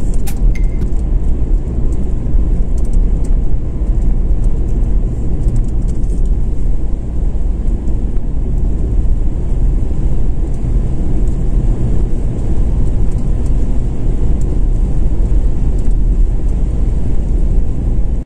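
Car driving along a mountain road, heard from inside the cabin: a steady, loud low rumble of engine and road noise.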